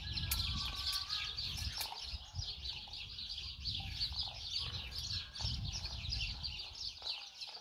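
Hand hacksaw cutting a metal piece for trough legs, about five rhythmic bursts of sawing strokes, with small birds chirping steadily throughout.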